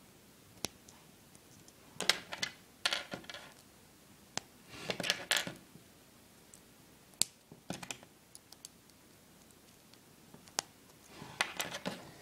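Small plastic Lego droid figures being handled and set down on a wooden tabletop: scattered light clicks and clattering in several short clusters.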